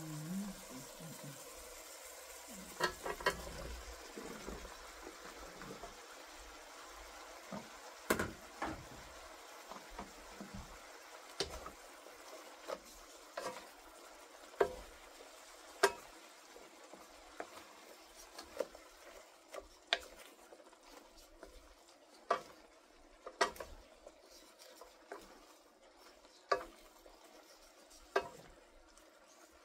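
Wooden utensil stirring sliced bitter melon through tomatoes and onions in a non-stick wok, with irregular scrapes and knocks against the pan over a low, steady sizzle of frying.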